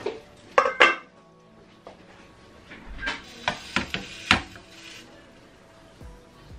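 Stainless steel pan lids and a spatula clattering against a frying pan and the gas hob: two loud ringing clangs in the first second, then several lighter clicks and knocks a few seconds in.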